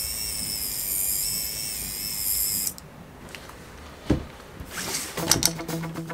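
A 1/10-scale RC crawler winch's small electric motor and metal gearing running with a steady high whine, then cutting off abruptly a little under halfway through. A single knock follows about four seconds in, and guitar music begins near the end.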